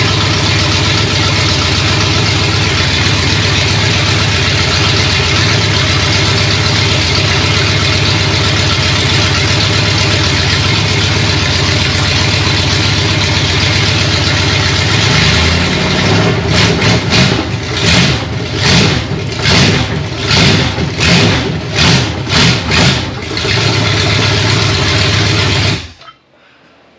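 Chevrolet 350 small-block V8, just freed from being seized, running with open pipes and no mufflers: a loud, steady run at first, then past halfway the revs rise and fall in quick pulses about twice a second for several seconds. It settles again and is shut off suddenly near the end.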